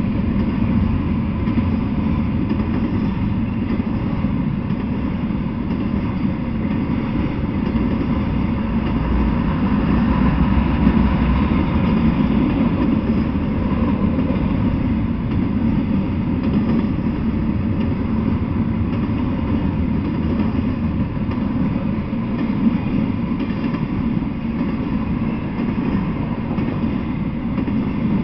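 Intermodal freight train's cars, loaded with semi-trailers, rolling past: steel wheels running on the rails with a loud, steady noise.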